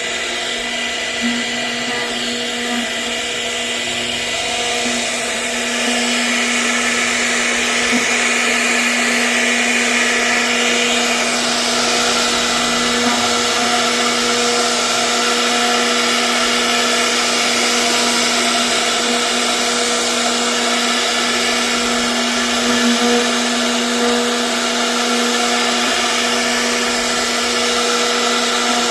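CNC router spindle running with a steady whine while carving a 3D design into wood, with a hiss of cutting over it. It gets a little louder about six seconds in.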